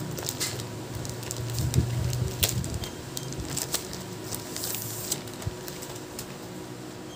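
Plastic bag crinkling in irregular crackles as a replacement laptop LCD panel is handled and slid out of its blue bag, over a steady low hum.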